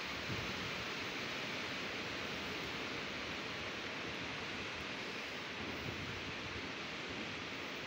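A storm's steady, even rushing hiss.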